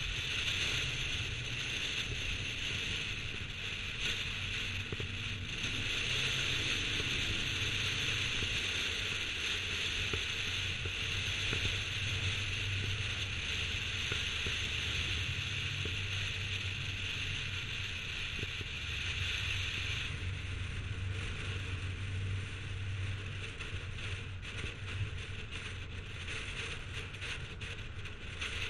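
Steady rush of wind and tyre noise from a car driving at cruising speed, picked up by a camera mounted outside on the car, over a low engine drone. The high hiss eases about two-thirds of the way through.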